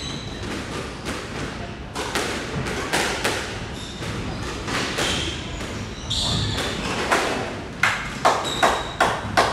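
Squash rally: the ball smacking off rackets and walls in a run of sharp thuds that come quicker near the end, with squeaks from sneakers on the wooden court floor.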